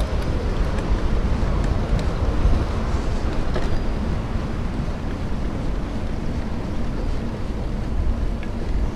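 Steady rush of wind on the microphone of a camera riding on a moving mountain bike, with the bike's rolling noise on a paved road, and a few faint clicks.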